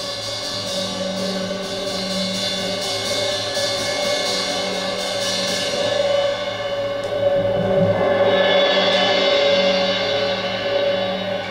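Live percussion: quick, shimmering strikes ring over layered, sustained ringing tones. The quick strikes thin out about halfway through, and the ringing swells toward the end.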